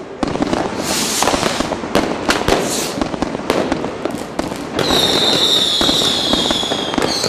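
New Year's Eve fireworks: a dense run of firecracker and rocket bangs with hissing rushes. About five seconds in, a shrill whistle sets in and holds, falling slightly in pitch, breaking off just before the end.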